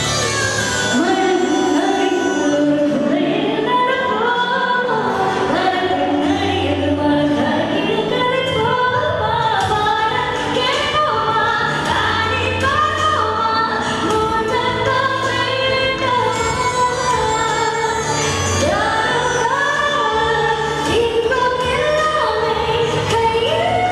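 A woman singing a Tamil song live into a handheld microphone over backing music, with long held notes that bend and slide in pitch; her voice comes in about a second in.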